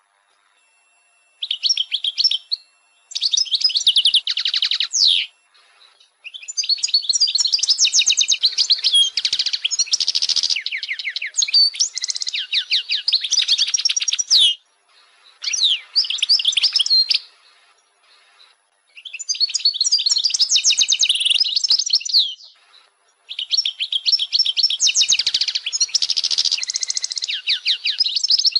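European goldfinch singing: rapid, sweet twittering phrases between about 2 and 8 kHz, in six bouts of a few seconds each with short pauses between. The longest bout runs for about eight seconds in the middle.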